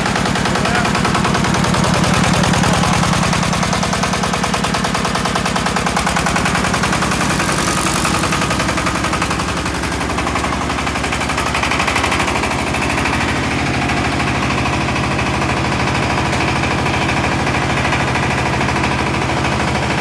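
Single-cylinder horizontal diesel engine of a diesel-powered concrete mixer running steadily, with a rapid, even chugging beat.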